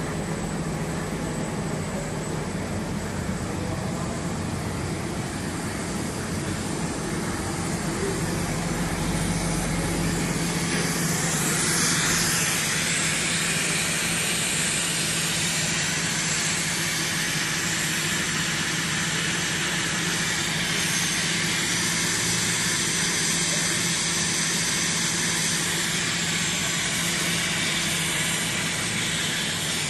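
Steady machine noise of a running optical-cable SZ stranding and sheathing line: a low hum with a hiss over it, growing louder and brighter about twelve seconds in.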